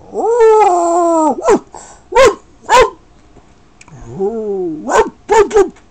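Dog howling: one long howl that rises and then falls in pitch, followed by three short sharp yelps. About four seconds in comes a second, shorter howl, then a quick run of yips.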